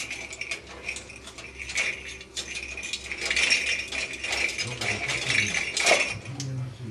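A pet parrot playing with a hard toy: a run of quick, irregular clicking and rattling.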